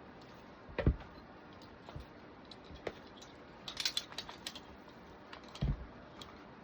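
Metal carabiners and clips clicking and clinking as gear is handled and unclipped from a climbing harness, with a cluster of bright clinks in the middle. Two dull thumps, about a second in and near the end.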